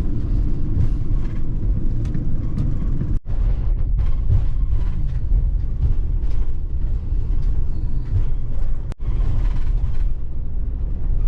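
Steady road and engine rumble of a car driving, heard from inside the cabin, with two brief dropouts.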